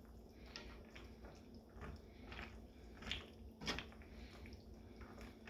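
Faint, scattered wet squishes and soft clicks from a pan of penne pasta in a creamy sauce, being simmered and stirred, about one sound every second, a slightly louder one a little past halfway.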